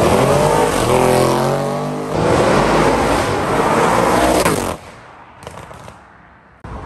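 Audi RS6's twin-turbo V8 on a loud exhaust, accelerating hard past. Its note climbs in pitch, dips at a gear change about two seconds in, and climbs again, then falls away suddenly about two-thirds of the way through.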